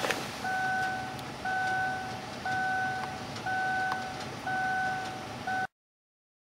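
An electronic beeper sounding a steady tone about once a second, each beep about half a second long, over a low background rumble. The sound cuts out abruptly near the end.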